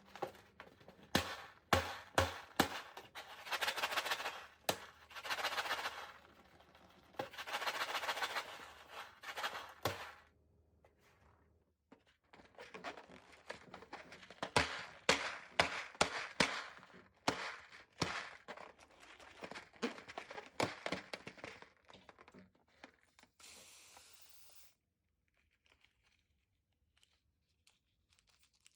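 Slime being squished and worked by hand, making rapid crackling pops of trapped air in repeated bursts, followed near the end by a brief hiss.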